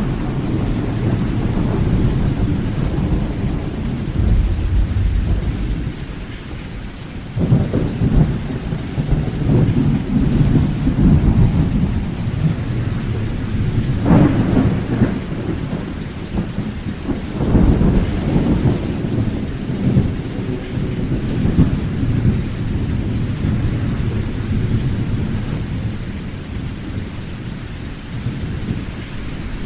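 Thunderstorm: steady rain under deep, rolling thunder, with fresh claps breaking in about a third of the way in, near the middle and a little later, each fading into a long rumble.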